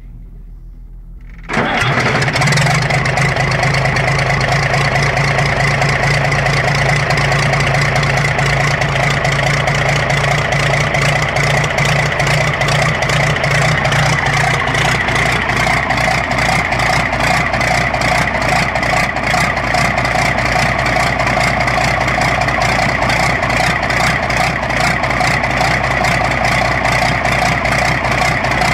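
Bedford TL truck's diesel engine turning on the starter, then catching about a second and a half in and running loudly with a rapid, even pulse. The exhaust manifold is removed, so the engine runs with no exhaust and each firing blows straight out of the open cylinder-head ports.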